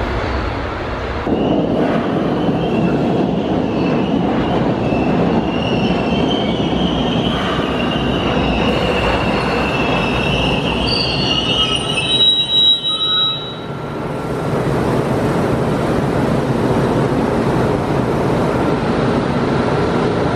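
MBTA Orange Line 01200-series subway train rolling through a station over a steady rumble of wheels on rail. Its steel wheels squeal in a wavering high pitch from about two seconds in until about twelve seconds, after which the rumble goes on alone.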